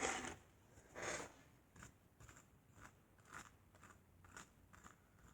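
Pieces of a shattered picture frame and its broken glass being handled: two short crunches about a second apart, then a run of faint, irregular clicks and scrapes.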